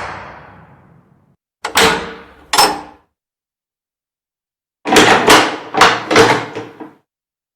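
Heavy old wooden castle door and its latch or lock mechanism clunking: the tail of a boom fades out, then two sharp knocks, then a quick run of about six knocks and rattles, each with a short ringing tail.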